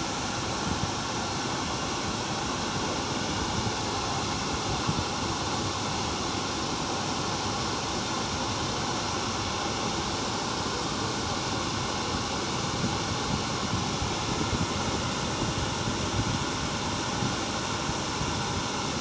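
Steady outdoor rushing noise spread evenly from low to high pitch, with no distinct events.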